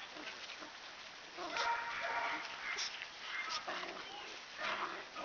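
Standard poodle puppies playing and making short yips and whimpering calls, several brief calls spread through the few seconds.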